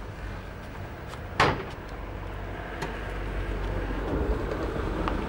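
A single sharp bang from a van's rear tailgate being handled, about a second and a half in, over a steady low rumble.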